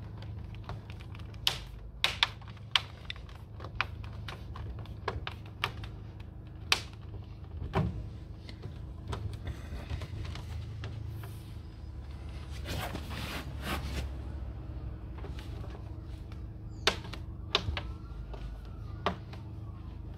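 Irregular sharp clicks and taps of a rubber fridge door gasket being pushed and clipped in behind the plastic door liner, with the liner levered forward, over a steady low hum.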